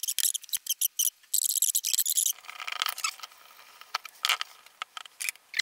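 A hand tap turned in a T-handle tap wrench, cutting a thread into a drilled hole: a quick run of high, squeaky chirps and clicks for about two seconds, then a softer scratchy rasp with scattered clicks.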